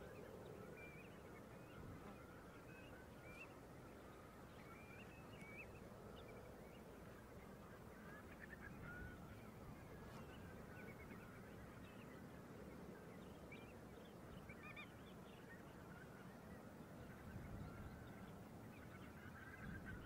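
Large flock of waterbirds on tidal mudflats calling faintly, with many short, overlapping calls over a low steady rumble.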